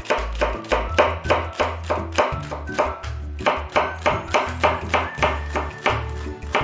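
Background music with a steady beat, about four strokes a second, over a sustained bass line.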